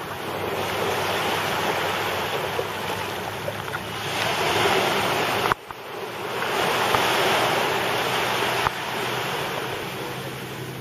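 Sea surf washing in on the beach in swells, with wind buffeting the microphone. The sound cuts out sharply for a moment about halfway through, then builds again.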